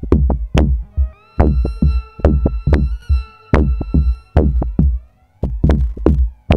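Electronic music played live on a drum machine and synthesizer: a heavy kick drum beat about twice a second, with a held synth chord coming in just after a short break about a second in. The beat drops out briefly again near five seconds.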